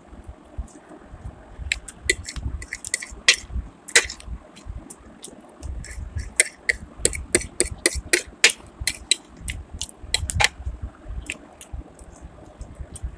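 Close-up mouth sounds of someone eating chicken pakora and chow mein: chewing with wet lip smacks and sharp clicks, coming thick and fast through the middle and thinning out near the end.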